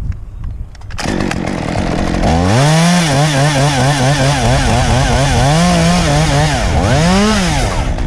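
Stihl two-stroke chainsaw revving up to full throttle about two seconds in and held there, its pitch wavering and sagging. Near the end it dips, revs once more and drops off.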